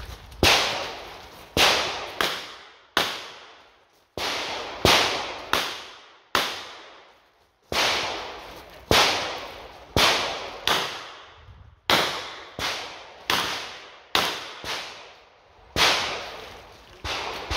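About twenty revolver shots from a Smith & Wesson 929 firing 9 mm, each a sharp crack with a short echo. They come in quick strings broken by brief pauses.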